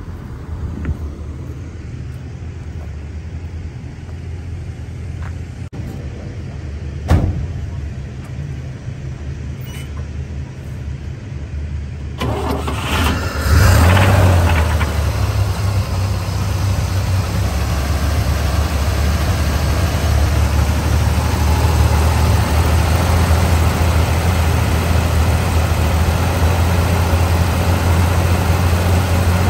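1962 GMC panel truck's original 305 V6 gasoline engine starting about twelve seconds in with a brief loud flare, then settling into a steady idle. One sharp knock about seven seconds in, before the start.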